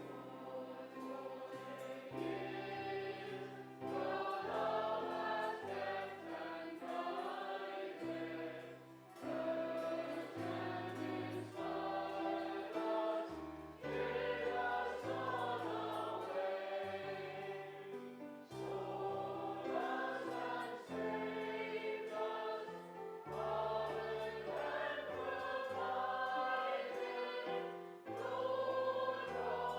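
Congregation singing a hymn together with the music group's instrumental accompaniment, a bass line stepping from note to note under the voices.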